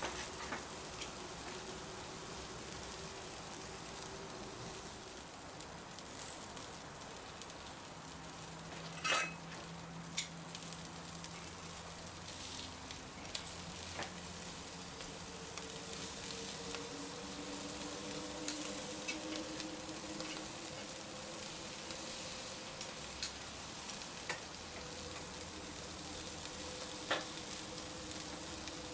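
Lamb chops sizzling on a charcoal grill grate: a steady hiss with scattered crackles and sharp clicks, the loudest about nine seconds in.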